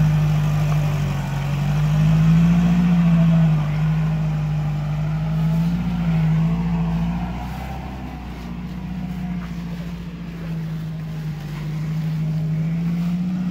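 Off-road 4x4's engine labouring as it pushes through river water and mud, its note swelling up and down a few times with the throttle, and growing fainter about halfway through.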